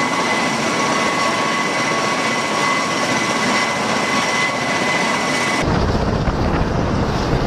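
MV-22 Osprey tiltrotor running on the ground with its rotors turning: a steady rush of rotor and engine noise with a high, steady turbine whine. About five and a half seconds in, the sound cuts to a duller, heavier rumble with the rotor downwash buffeting the microphone.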